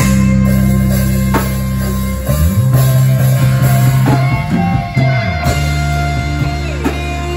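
Rock band playing live: electric bass holding long low notes that change pitch twice, electric guitars and a drum kit.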